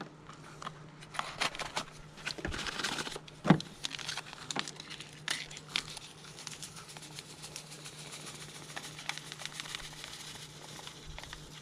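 Packet of strawberry gelatin mix being torn open and crinkled, with scattered sharp crackles, densest about two to three seconds in, then a softer hiss as the powder is poured out onto breadcrumbs in a plastic tub.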